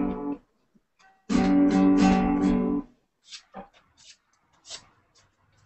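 Acoustic guitar chords ringing, heard over a video-call link: one chord cuts off abruptly just after the start, and another sounds from about a second and a half to three seconds in and cuts off just as sharply. A few faint ticks follow.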